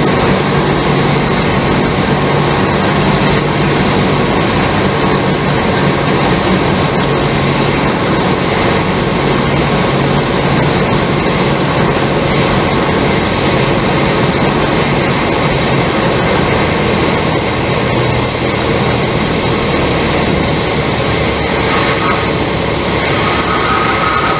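Cessna 172's piston engine and propeller running steadily with airflow noise, heard from inside the cockpit, power back for the landing approach. Past the middle the engine note drops lower, and near the end a thin steady tone comes in.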